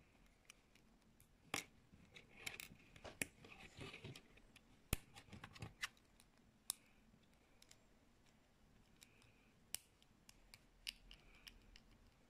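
LaQ plastic building pieces being snapped together and handled: irregular sharp clicks, with a little rustling between them, the loudest about five seconds in.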